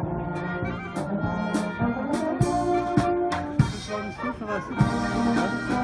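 Brass band playing a tune, brass instruments over a steady drum beat.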